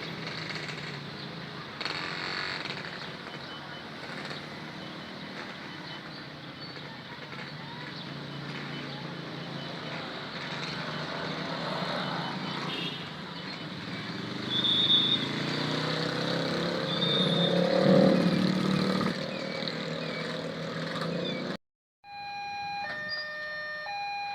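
Container freight train passing over a level crossing, running with a steady heavy rumble and clatter that grows louder about two-thirds of the way through. After a cut near the end, the crossing's electronic warning alarm sounds as a repeating pattern of steady beeping tones.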